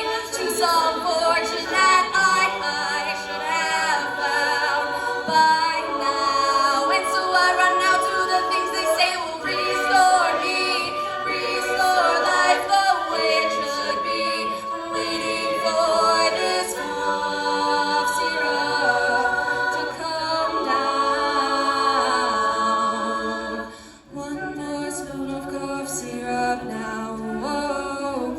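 A cappella singing: several voices in layered harmony, with no clear words. Near the end there is a brief dip, and then lower voices carry on.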